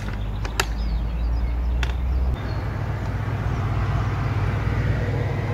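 A few sharp clicks of the smokehouse cabinet's door latches, then a steady mechanical whir from the open cabinet, its circulation fan running.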